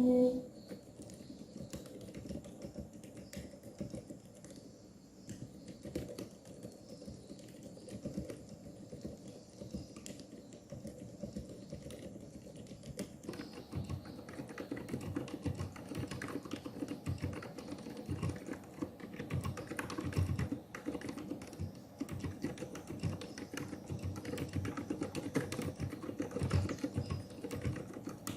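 Meca 6 Plus mechanical keyboard in an acrylic gasket-mount case, typed on continuously during a typing test: a steady stream of quick keystrokes that grows denser about thirteen seconds in.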